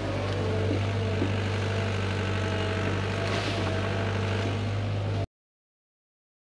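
Hyundai HX85A excavator's diesel engine running at a steady drone, with a couple of light knocks about a second in. The sound cuts off suddenly about five seconds in.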